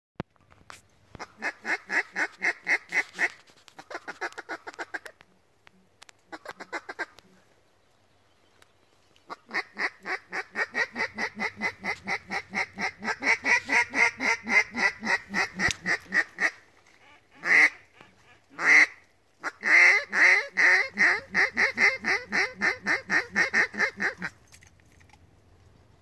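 Duck call blown in mallard hen quacks: long, even runs of quacks at about six a second, broken by short pauses, with two drawn-out loud single quacks about two thirds of the way through. It is calling to a flock of ducks circling overhead.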